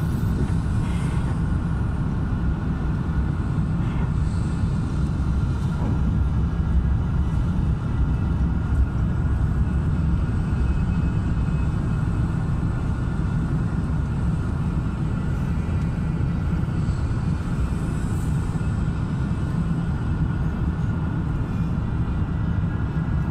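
Steady cabin rumble of an Airbus A350-1000 airliner: its Rolls-Royce Trent XWB engines and the airflow are heard from inside the economy cabin, with a faint steady whine above the low roar.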